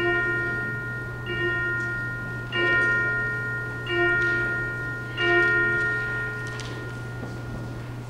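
A single bell struck five times at an even pace, about one strike every 1.3 seconds, each stroke ringing on and overlapping the next before fading, over a steady low hum. It is rung to open a church worship service.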